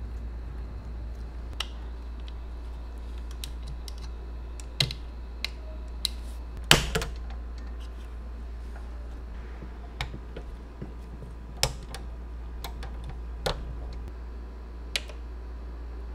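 Small die-cast model truck parts clicking and tapping as they are fitted together by hand: scattered sharp clicks, the loudest about seven seconds in, over a steady low hum.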